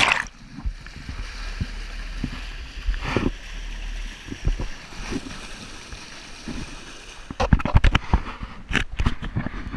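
Water rushing and splashing along a moving sailboat's hull, with a strong splash about three seconds in, over low wind rumble on the microphone. Near the end, a quick run of knocks and clatters as the camera is brought up.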